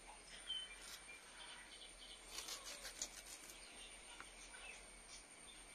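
Faint crisp clicks of a knife slicing through a banana stem into rounds, clustered a little past the middle. A short, faint bird chirp sounds about half a second in.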